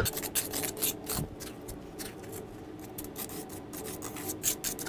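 Magnesium float scraping and rubbing over wet concrete in a run of short, irregular strokes as the fresh patch is smoothed.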